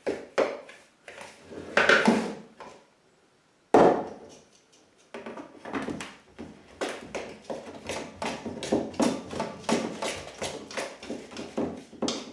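A hand stirring dry whole-grain flour and ground spices in a bowl: the soft rasp of fingers dragging through flour and brushing the bowl's side. From about five seconds in it becomes a quick, steady run of stroking scrapes, several a second, as the hand works the mix around a stainless steel bowl. There is one sharp knock near four seconds in.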